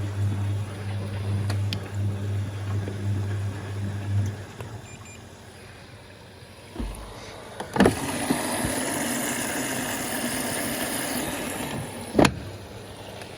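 Siemens Siwamat XB1260 washing machine between its interim spin and first rinse. A steady hum, typical of the drain pump, stops about four seconds in. Later a click is followed by about four seconds of water rushing in through the inlet valve, cut off by another click as the machine fills for the first rinse.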